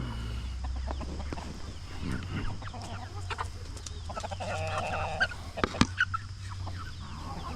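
Chickens clucking as they crowd round scraps tossed to them, with one longer pitched call a little past the middle and a sharp tap shortly after it.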